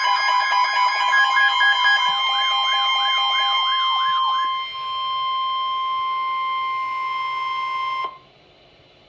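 Emergency alert attention signal: a fast siren-like warble, rising and falling about two and a half times a second over steady alert tones, gives way about halfway to a single steady tone near 1 kHz, which cuts off suddenly about eight seconds in.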